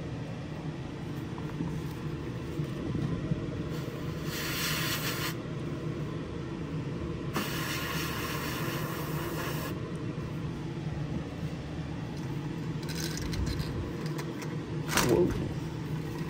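Airbrush spraying paint in two short bursts of hiss, about four seconds in and again about seven seconds in, over the steady hum of a spray booth's exhaust fan.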